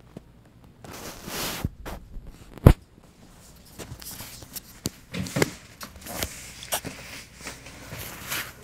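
Handling noise from a small handheld camera being moved about: irregular rustling and scattered clicks, with one sharp knock about two and a half seconds in.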